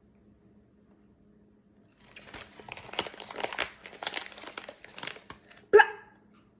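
Plastic snack wrapper crinkling for about three seconds as an opened package is handled and folded to close it. Near the end, one short, loud pitched sound cuts in.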